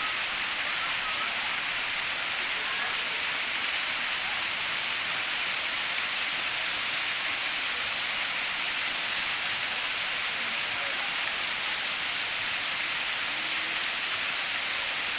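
Waterfall with the water rushing, a steady, unbroken roar of falling water.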